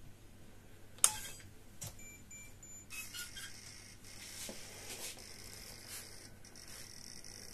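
A sharp click about a second in, then a few short high electronic beeps from the radio-controlled tow truck's electronics, followed by a faint steady high whine.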